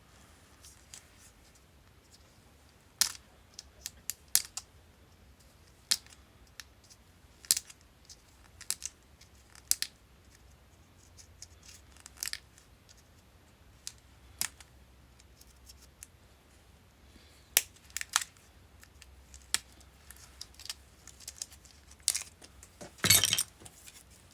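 Brittle, decades-old hard plastic covering on a wiring harness being cracked and peeled off the wires: scattered sharp snaps and clicks at irregular intervals, with a longer crunchy crackle near the end.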